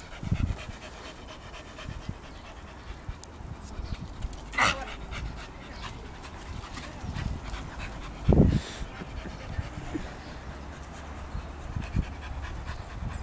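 Staffordshire bull terrier panting hard, with scattered short clicks and scuffs, a short sharp noise about a third of the way in, and a dull thump a little past halfway.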